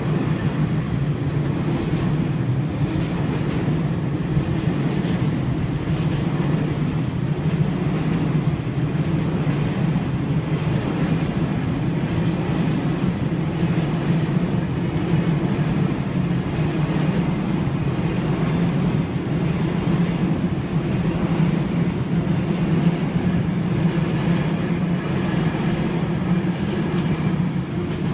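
Freight train hauled by an EH500 electric locomotive passing at a steady speed, its wagons rolling by in a continuous, loud rumble.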